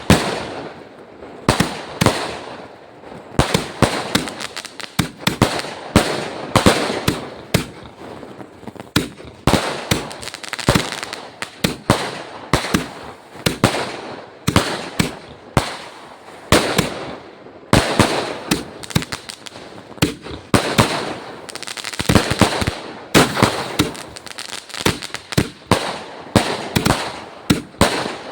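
Firecrackers going off in a rapid, irregular string of sharp bangs, several a second, with crackling between them.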